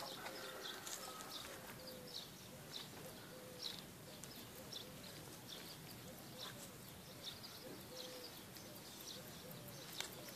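Faint outdoor ambience with birds chirping: short high chirps repeating every half second or so, with faint low calls beneath.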